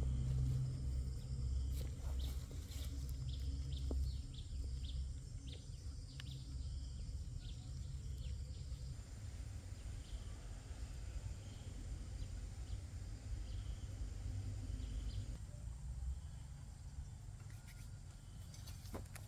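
Birds chirping in short, repeated high calls over a steady low rumble; the chirps thin out about nine seconds in.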